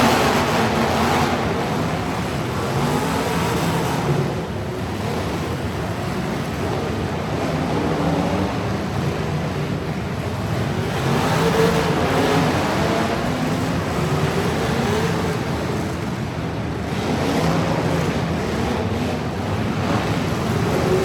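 Truck engines revving and running, their pitch rising and falling, getting louder near the start, again about twelve seconds in, and near the end.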